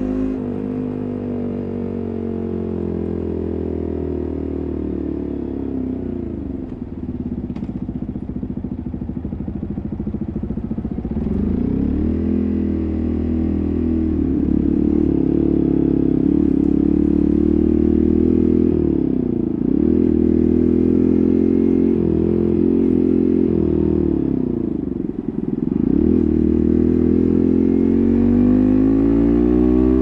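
Yamaha MT15's single-cylinder engine running through an SC Project full-system exhaust while riding. The revs fall away for a few seconds, then the engine pulls harder and louder, dips briefly twice and climbs again near the end.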